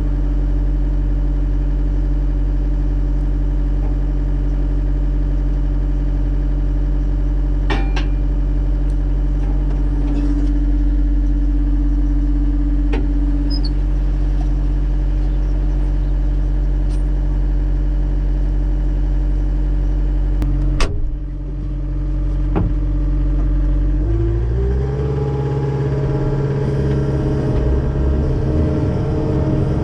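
John Deere 333G skid steer's diesel engine idling steadily. A sharp clunk comes about two-thirds of the way through, and a few seconds later the engine speeds up to a higher, steady pitch.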